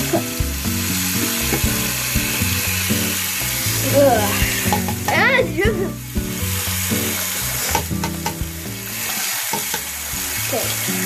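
Water running steadily from a bathroom sink tap into the basin, an even hiss, while teeth are being brushed.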